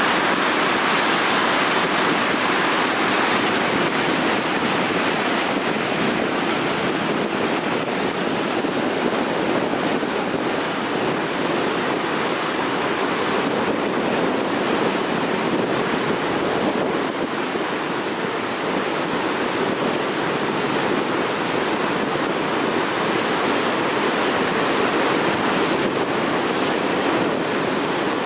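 Reservoir outlet discharging floodwater: a loud, steady rush of churning water that does not let up.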